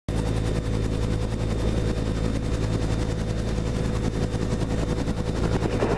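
Helicopter rotor and turbine heard from inside the cabin with the side door open: a steady loud drone with a rapid, even beating of the rotor blades.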